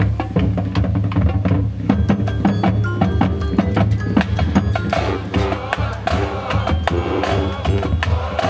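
High school marching band playing its field show, with many sharp percussion strikes and ringing pitched tones over a steady low bass; the sound grows fuller about five seconds in.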